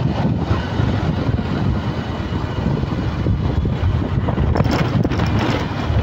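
Steady rush of wind on the microphone of a moving motorcycle, over the bike's low running noise.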